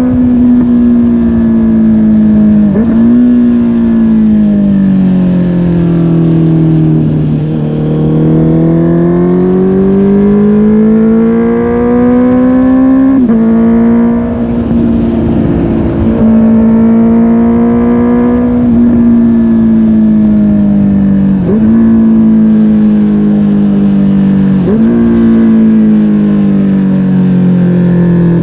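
Honda CB650R inline-four through a MIVV GP PRO Carbon slip-on exhaust, riding on a winding road. The revs sag and climb, with about four quick gear changes where the pitch drops sharply.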